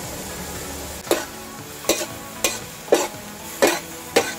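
Ground beef frying in a large metal wok, with dark soy sauce just added. From about a second in, a metal spatula stirs it, scraping against the pan about six times, roughly every half second.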